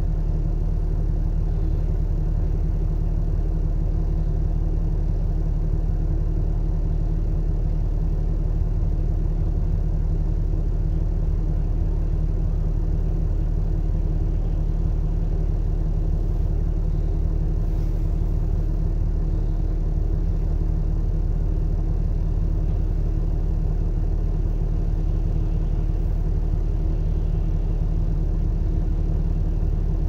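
A vehicle engine idling with a steady low hum, heard from inside the parked vehicle's cabin.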